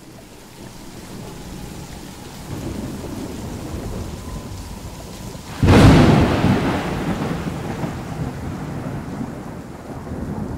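Thunderstorm sound effect: steady rain that builds up over the first few seconds, then a single loud thunderclap just past halfway that rolls away slowly while the rain keeps falling.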